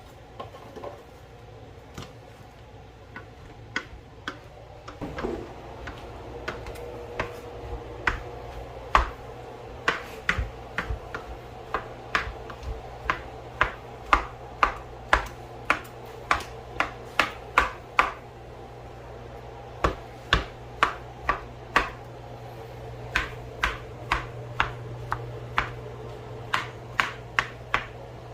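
Tongs knocking and scraping against a skillet while ground beef and sausage are broken up and turned, many sharp clicks coming in runs of about two a second. A steady low hum comes in about five seconds in.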